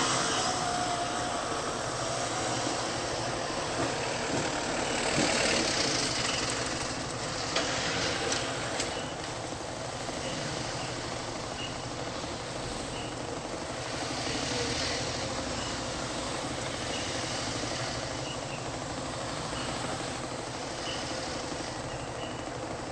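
Street traffic noise: a steady hum of vehicle engines, with passing vehicles swelling and fading a few times.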